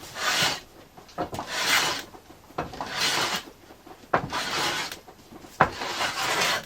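Hand plane taking long shaving strokes along a sapele blank, five strokes about a second and a half apart, each a rasping hiss that sometimes starts with a sharp click.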